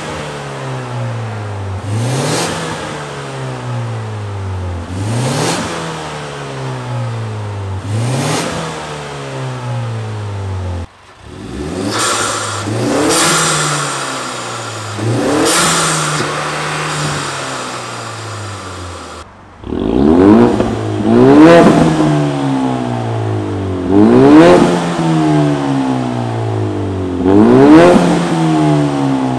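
Ford Mustang 2.3 EcoBoost turbocharged four-cylinder revved over and over through an IPE Innotech valved exhaust. Each rev climbs quickly and falls back more slowly, about one every three seconds. At first the exhaust valves are closed and it is more subdued; about two-thirds of the way in they are open and the revs are distinctly louder.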